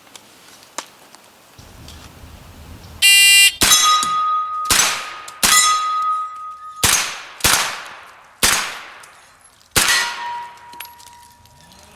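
A shot timer beeps for about half a second, then a Colt AR-15 9mm carbine fires seven shots about a second apart at steel plates, with hit plates ringing after several shots.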